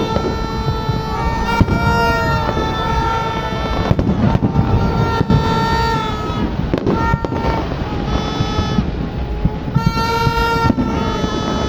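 Horns tooting in long held notes, several at once and overlapping, starting and stopping every second or two over a loud, constant crowd-and-street din, with a few sharp firework cracks.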